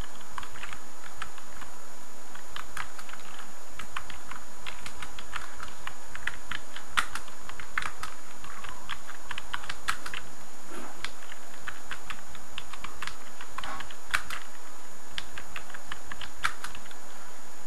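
Typing on a computer keyboard: a run of irregular key clicks with brief pauses between words.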